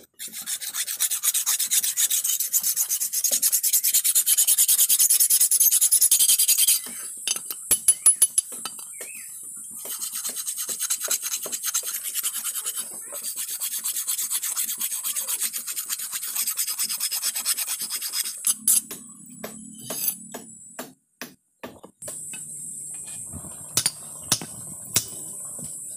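Hand file rasping along the edge of a rusty steel chopper blade in quick back-and-forth strokes, loudest in the first seven seconds and again from about ten to eighteen seconds. After that it goes quieter, with a few scattered taps.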